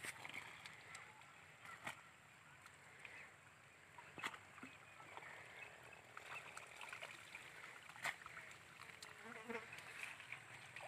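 Quiet field ambience: faint insect buzzing with a steady high tone, broken by a few sharp clicks.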